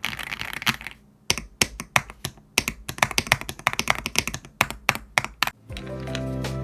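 Fast typing on an Aula F87 Pro tenkeyless mechanical keyboard with its stock LEOBOG Gold switches, in a foam-packed case. It starts as a rapid run of keystrokes, pauses briefly, then continues as many separate key presses. Background music begins near the end.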